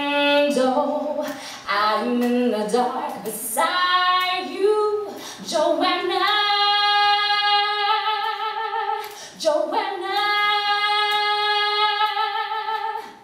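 A woman singing solo into a microphone, unaccompanied, moving through short phrases and then holding two long sustained notes in the second half.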